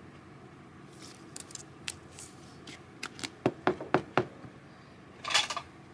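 Hands handling trading cards: scattered light clicks and taps as cards are slid and flipped, several sharper clicks in the middle, and a brief rustle near the end.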